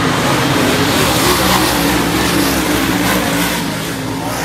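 A pack of dirt modified race cars' V8 engines running hard at racing speed, the engine notes wavering up and down as the cars go through the turns; slightly quieter near the end.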